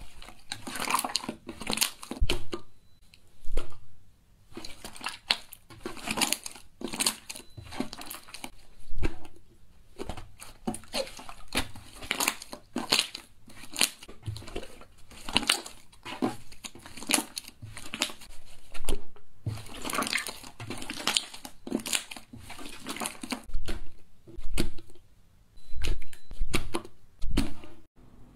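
Clear, pale green jelly slime pressed and kneaded by hands, giving dense, irregular runs of short crackles and clicks with brief pauses between handfuls.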